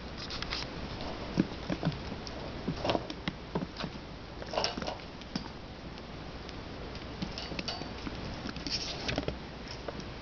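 Five-week-old kittens playing and scuffling on a hard floor and plastic crate: irregular light taps, pattering and scrabbling of small paws and claws.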